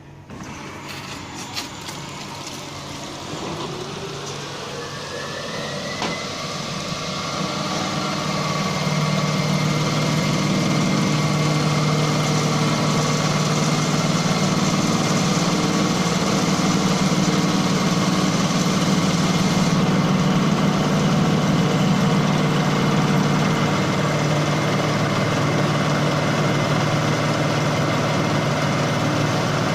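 Three-axis CNC drilling and facing machine starting up and running: a motor whine rises in pitch over the first six seconds, then holds steady. The running noise builds until about nine seconds in and then stays loud and even, with a low hum under it.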